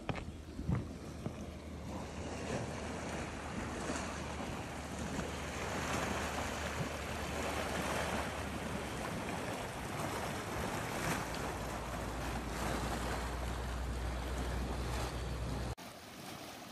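Hot spring water churning and bubbling as it wells up in the centre of the pool, a steady rushing noise, with wind rumbling on the microphone. A few footsteps on a wooden boardwalk at the start, and the noise drops off abruptly near the end.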